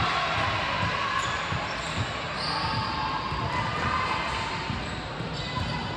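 A basketball being dribbled and bouncing on a hardwood court: irregular low thumps over the steady noise of the gym, with faint voices in the background.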